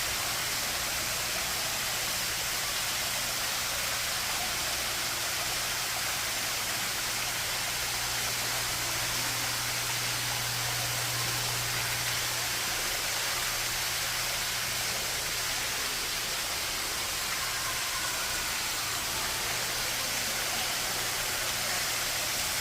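Artificial waterfall pouring steadily, a continuous rush of falling water with a faint low hum underneath.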